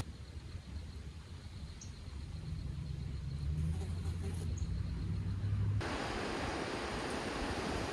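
A vehicle engine running low and steady, growing louder over a few seconds, with a couple of faint bird chirps. Near the end it cuts abruptly to an even rushing noise.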